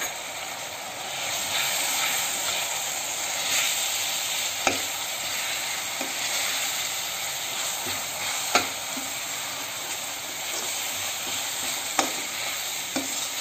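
Onion and ginger-garlic masala with freshly added ground spices sizzling as it fries in hot oil in a kadai, stirred with a steel slotted spatula that knocks against the pan now and then.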